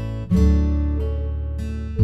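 Background music: plucked-string chords over a steady deep bass, with a new chord struck about a third of a second in.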